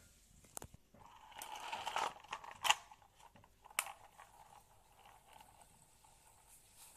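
Small plastic pull-string toy train dragged across a rough concrete floor: a second or so of scraping and rattling of its plastic wheels and body, then two sharp clicks or knocks as it bumps along.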